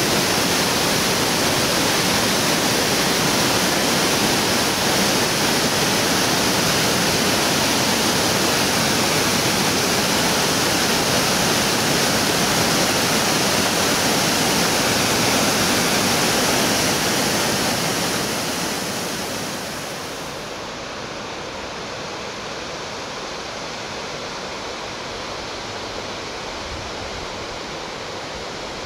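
Waterfall pouring over rock ledges into a pool, a steady loud rush of water. Past the middle it fades to a softer, steady flow of the river.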